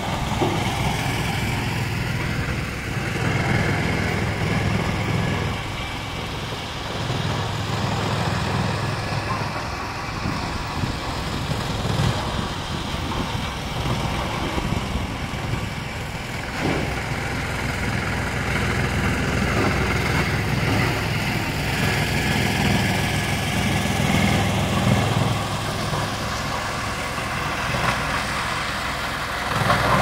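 GX2113 electric-motor-driven drum wood chipper and its chip conveyor running, a steady machine hum. Its low drone swells and eases every few seconds and grows louder right at the end.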